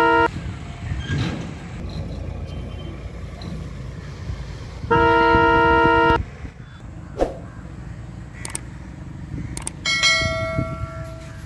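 A train horn sounding two loud, steady blasts: the first cuts off just after the start, the second lasts about a second, some five seconds in. Near the end come a few clicks and a ringing chime.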